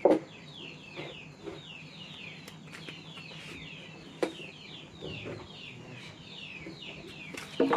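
Chicks peeping steadily in a rapid run of short falling chirps, with a few sharp knocks, the loudest right at the start and again just before the end.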